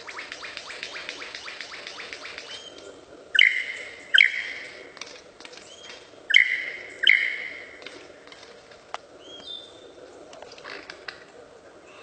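Superb lyrebird in display, giving a fast clicking rattle and then its mimicked "laser gun" sound: four loud, sharp zaps in two pairs, each ringing briefly, followed by a short gliding note.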